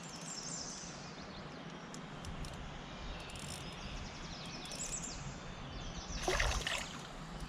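River water flowing steadily, with faint high chirps over it and a brief louder splash-like rush about six seconds in.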